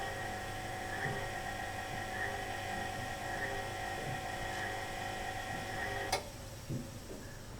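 Washing machine winding down at the end of its spin cycle: a steady motor whine with a soft beat about once a second. About six seconds in there is a click and the whine cuts off, followed by a faint knock.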